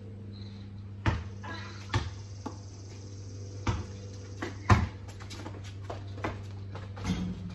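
A basketball being dribbled: a handful of separate thuds, roughly a second apart, the loudest near the middle, over a steady low hum.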